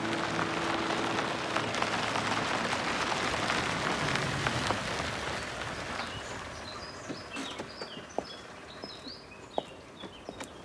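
A steady rushing noise fades out over the first six seconds. Then small birds chirp, mixed with a few sharp clicks.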